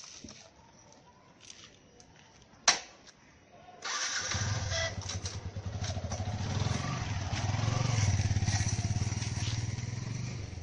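Motorcycle engine starting about four seconds in, after a sharp click, then running steadily, growing louder for a few seconds before easing slightly.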